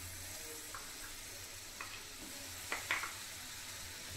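Butter sizzling as it melts on a hot tawa (flat griddle), with a few light clicks about three seconds in.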